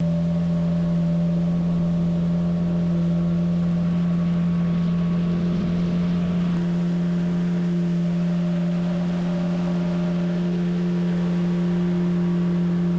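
Outboard motor of a small boat running steadily under way, holding one unchanging pitch, with the rush of water and wind beneath it.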